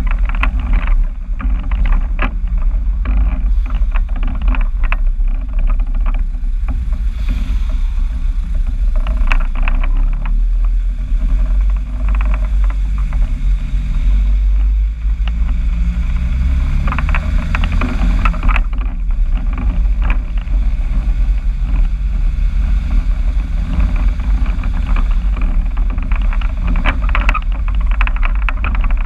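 Motor vehicle engine running through its new exhaust: a continuous low, heavy drone, with the engine note shifting up and down in pitch about halfway through.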